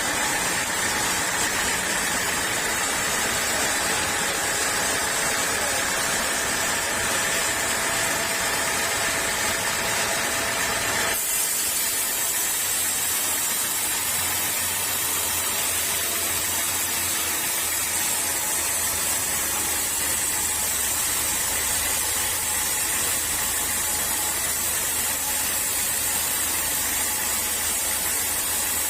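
Sawmill saw running steadily with a loud hiss, cutting teak. About eleven seconds in the sound changes abruptly: the hiss grows brighter and a low hum comes in.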